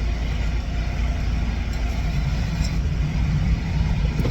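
Steady low machine rumble, like an engine running, growing a little stronger about halfway through, with a few faint ticks of small metal lock parts being handled.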